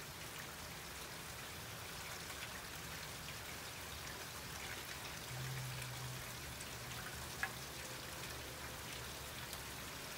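Steady rain falling, with scattered drips and one sharp tick about seven seconds in.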